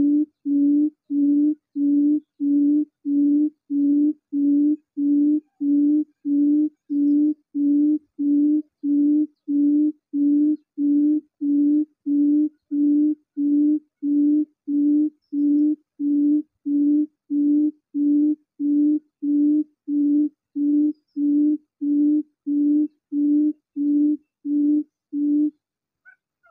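Recorded buttonquail call played as a lure through a Bluetooth phone speaker: one low hoot repeated evenly about three times every two seconds. It stops about a second before the end, and a few faint high chirps follow.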